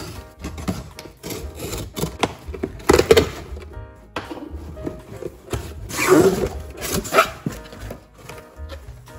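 Packing tape on a cardboard shipping box being slit with a box cutter, then the cardboard flaps pulled open and the box tipped over, with rustling scrapes and a few louder thumps, over background music.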